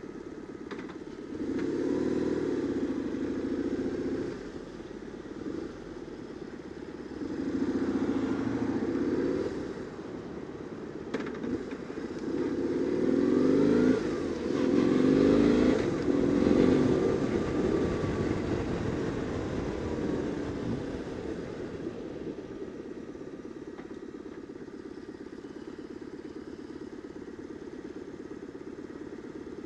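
BMW R850R's boxer twin pulling away and accelerating in three surges of throttle with dips between them, then easing off and running quietly at low revs near the end as the bike slows.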